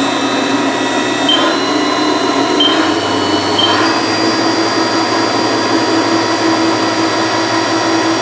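Haas VF-5 CNC mill's spindle running, its whine stepping up in pitch three times in the first four seconds as it speeds up, then holding steady at its top speed of 7,500 rpm.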